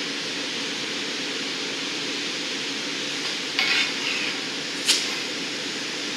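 Steady roar of a glassblowing studio's furnace and glory hole, with a brief scraping rasp about three and a half seconds in and a sharp click about a second later.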